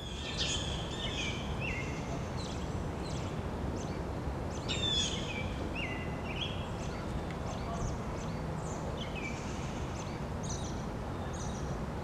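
Small songbirds chirping and singing: many short chirps and quick downward-sliding whistles, one after another, over a steady low background hiss.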